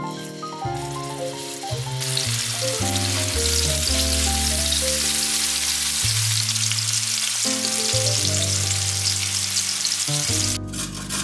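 Ground-beef patties sizzling as they fry in hot olive oil in a pan. The sizzle builds about two seconds in and cuts off suddenly near the end, over background music.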